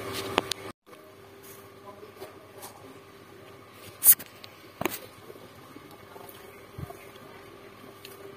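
Handling noise from the recording phone or camera: fingers rubbing and knocking against it, with a few sharp clicks, the loudest about four seconds in. A faint steady hum runs underneath.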